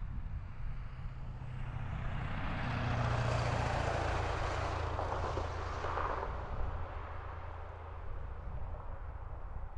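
A vehicle passing on a distant road, its engine and tyre noise swelling to a peak three to four seconds in and then fading away over a steady low hum.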